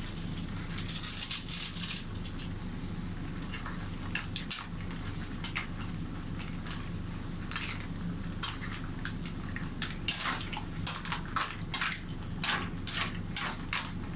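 Pot of green mussels and tilapia cooking: a hissing burst about a second in, then scattered sharp clicks of mussel shells and a ladle against the pot, coming thicker near the end, over a steady low hum.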